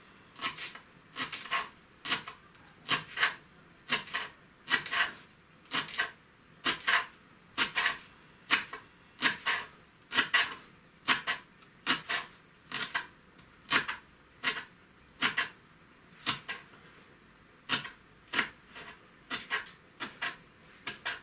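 Kitchen knife chopping fresh coriander on a wooden cutting board: a steady run of sharp knife strikes, about two a second.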